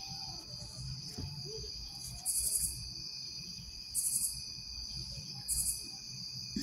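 Night insects chirring: a steady high-pitched trill with three short, louder, pulsing buzzes about a second and a half apart.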